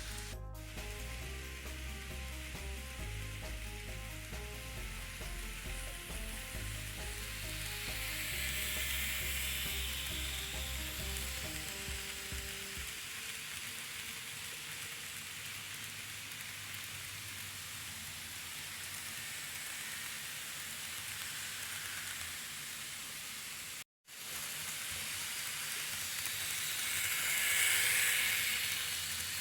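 N gauge model train running on the layout: a steady hiss of wheels on rail and small motor, swelling twice as the train passes close by. Soft music with a low beat plays under it for about the first half, and the sound drops out for a moment near the end.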